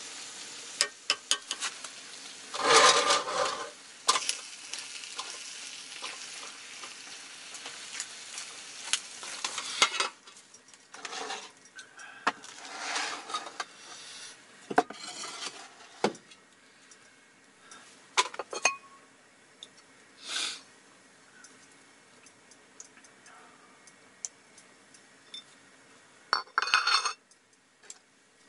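Cheese and spicy chicken feet sizzling in a cast-iron skillet on a portable gas burner, with a spoon scraping and clinking in the pan. The sizzle stops about ten seconds in, leaving scattered clinks of a spoon and dishes and a short louder burst of noise near the end.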